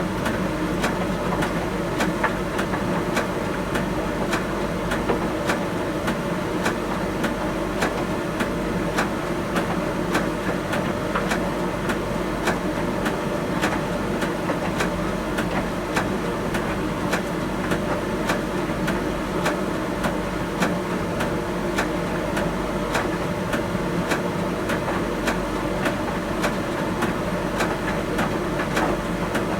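Miele T1 heat pump tumble dryer running mid-cycle: a steady hum with several held tones, and many small clicks and taps as the load tumbles in the drum.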